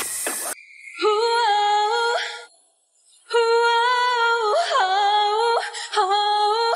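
A woman singing a cappella in a heavy crying tone, holding high notes that waver. There are two phrases with a brief silence of about a second between them, a little before the middle.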